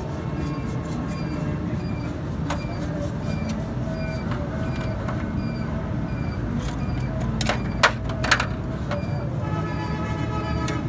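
Steady low rumble of motor traffic, with two sharp knocks about eight seconds in and a vehicle horn sounding near the end.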